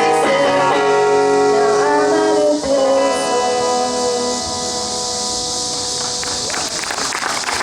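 The song's ending on guitar and voice: a final strummed chord about two and a half seconds in rings out and fades, and applause begins near the end.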